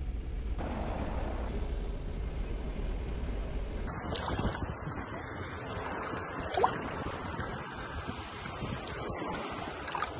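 Steady low drone of an aircraft's engines heard inside the cockpit. About four seconds in it cuts off to a steady rushing noise, with one short rising whistle a couple of seconds later.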